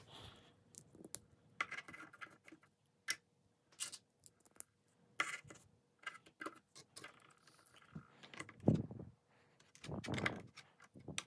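Small plastic clicks and light scrapes of LEGO minifigure parts being handled: helmets pulled off and pressed onto clone trooper minifigures. Two louder, duller knocks near the end as figures are set down onto a LEGO baseplate on a wooden table.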